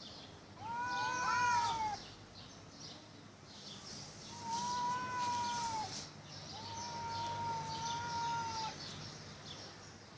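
Cats yowling at each other in a fight standoff: three long, wavering wails of one to two seconds each. In the first, about a second in, two voices overlap.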